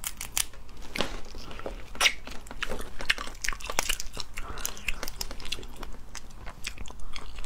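Cooked crayfish shells cracking and crackling as they are peeled apart by hand close to the microphone: a dense run of sharp, irregular crackles and snaps.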